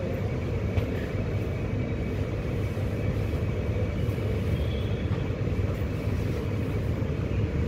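Steady low rumble and hum inside a Mumbai Metro carriage.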